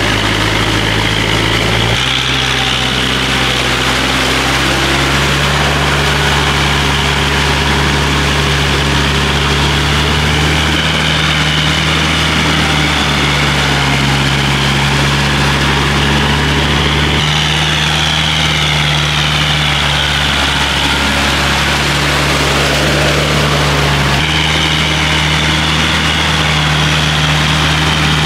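Kubota compact tractor's diesel engine running steadily under load, pulling a rotavator through wet mud. The engine note shifts abruptly several times, jumping in pitch three or four times.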